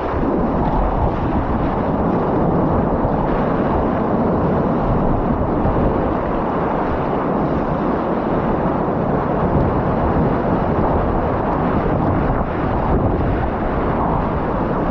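Strong wind buffeting the microphone over breaking waves, a steady loud rush with no letup.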